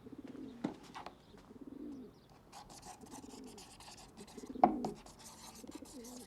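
Pigeons cooing over and over, a soft call roughly once a second, with rustling and a few sharp knocks, the loudest nearly five seconds in.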